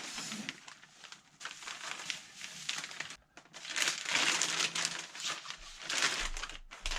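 Plastic and foam packaging rustling and crinkling in irregular bursts as a foam RC airplane's fuselage is pulled out of its box, loudest in the second half.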